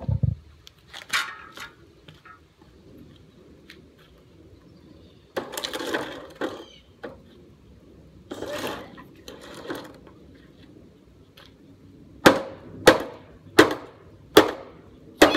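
A hammer strikes a hard plastic object on pavement five times in quick succession near the end, about two blows every second and a half. Earlier there are two longer clattering noises as the object is stomped on.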